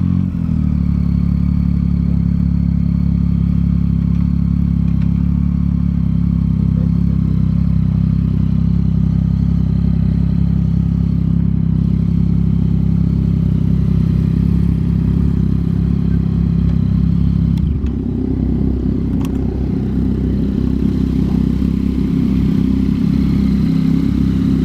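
Yamaha MT-09's three-cylinder engine running through a Yoshimura R11 exhaust, holding a steady note. About eighteen seconds in, the note turns rougher and uneven.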